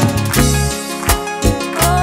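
Live band music: saxophones playing over bass and a steady drum and timbales beat.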